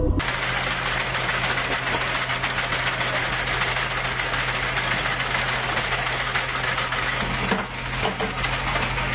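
Shipboard automatic cannon cycling, with a linked belt of cannon rounds being fed through its feed mechanism: a rapid, steady mechanical clatter over a continuous low motor hum.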